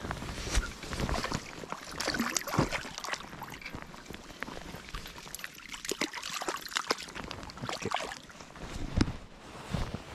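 Handling noise: a jacket sleeve and gloved hand rubbing and knocking against a body-worn camera's microphone while the angler works a baitcasting rod and reel, making irregular rustles and sharp knocks.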